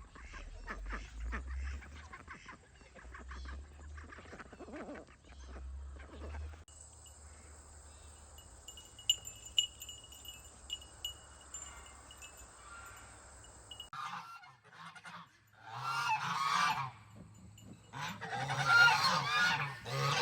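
Farm fowl calling loudly in several bursts over the last six seconds, after a quieter stretch of faint rustling and a few clicks.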